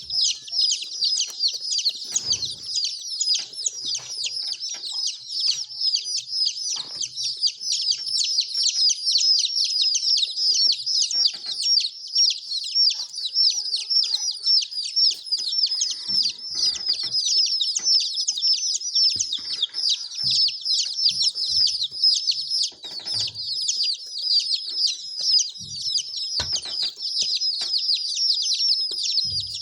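A crowd of baby chicks peeping nonstop, many short, high, falling peeps overlapping into a dense chorus. A few faint low knocks sound now and then beneath it.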